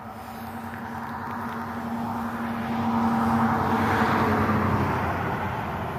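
Honeybee swarm humming as a steady drone. Over it, a passing vehicle swells up to its loudest a little past the middle, then fades away.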